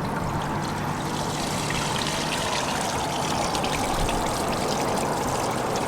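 Waste water from an RV's black holding tank rushing steadily through a sewer hose as the tank is dumped, with a faint steady low hum beneath.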